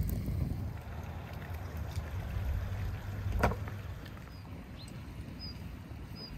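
Low rumbling outdoor noise beside an open wood fire, with one sharp click about three and a half seconds in. After that it is quieter, and a small bird chirps short high notes every half second or so.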